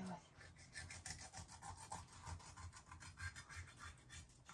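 Kitchen knife sawing through a fish's belly skin and flesh with short back-and-forth strokes, about three a second, a faint rasping.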